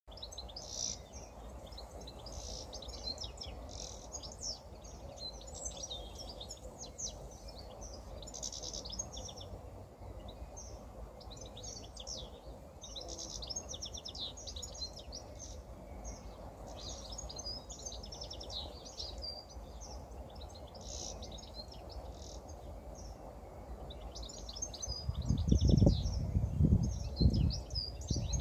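European goldfinch singing: long runs of fast, tinkling twitters and trills in phrases with short breaks. About 25 seconds in, a few loud low thumps come in over the song.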